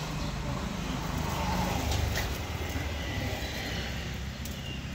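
Low engine rumble of a passing motor vehicle, swelling about two seconds in and then easing off.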